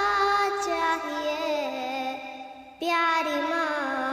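A young child singing a song in Urdu without instruments, holding long notes. The voice trails off briefly about two and a half seconds in, then comes back at full strength.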